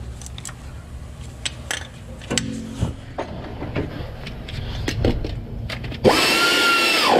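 Scattered clicks and knocks of a socket and tools being handled, then about six seconds in a pneumatic air ratchet with a 15 mm socket runs for about a second with a steady whine, snugging the bolts to make sure they are all tight.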